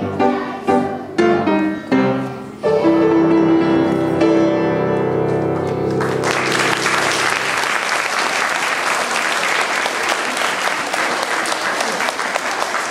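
Piano music playing chords, ending on a long held note, then applause breaking out about six seconds in and continuing steadily.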